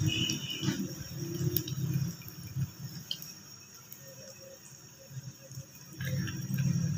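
Pakoras deep-frying in a pot of hot oil: a steady sizzle and bubbling. A low rumble comes in the first two seconds and again about six seconds in.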